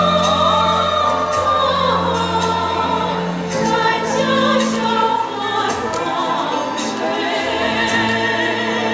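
Music: singing with choir-like voices over sustained orchestral-style accompaniment, with long held notes.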